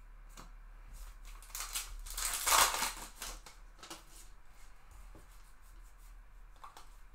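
A baseball card pack's wrapper being torn open: one crackling rip that builds and fades over about two seconds in the middle. Soft ticks of cards being handled follow.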